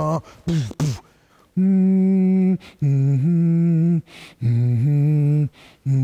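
A man singing unaccompanied: a run of long held notes of about a second each, with short breaks between them and the pitch stepping up or down partway through some notes.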